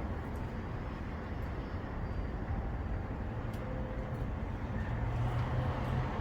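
Outdoor street ambience: a steady low traffic rumble that swells slightly about five seconds in.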